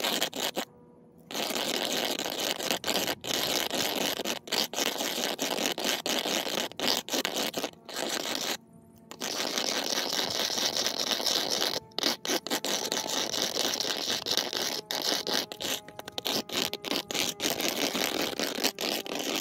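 Top of a metal food can rubbed hard back and forth on concrete, a rapid gritty scraping that stops briefly twice, about a second in and about nine seconds in. The rim is being ground down on the cement to wear through the lid's seal.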